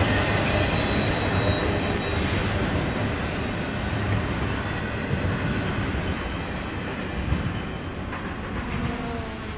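Freight train cars rolling past on the rails, a steady rumble and clatter that slowly fades, with a single sharp click about two seconds in.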